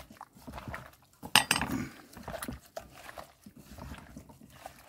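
Hand squishing and stirring pieces of fish, sliced onion and sauce in a metal pot, a wet squelching, with one sharp metallic clink of a metal spoon against the pot about a second and a half in.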